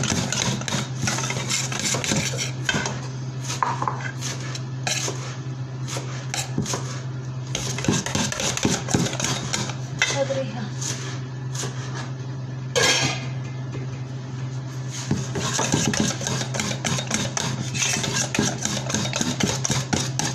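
Wire whisk beating thin flour-and-water batter in a stainless steel bowl: a fast, continuous run of metal clinks and scrapes against the bowl's side, over a steady low hum.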